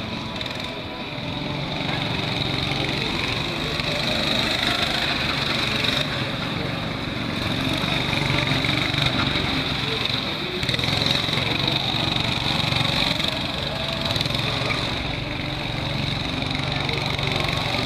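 Small go-kart engine running as the kart laps the track, swelling and fading every few seconds as it speeds up and slows or passes nearer and farther. A steady high-pitched whine sits under it throughout.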